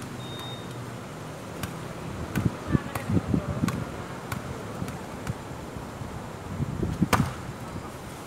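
Volleyball being struck by hands and arms during a rally: several sharp hits, the loudest about seven seconds in, with low thumps in between.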